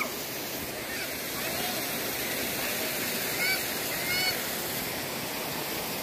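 Waterfall and mountain stream rushing as a steady wash of noise, with a few short high calls in the background around one and a half, three and a half and four seconds in.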